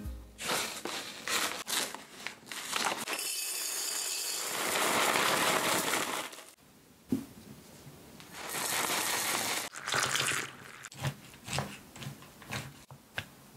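Dry cereal poured from its bag into a glass jar: a dense rattling pour lasting about three seconds, then a second, shorter pour a few seconds later. Near the end come a few light clicks of a wooden spoon stirring cereal in a ceramic mug.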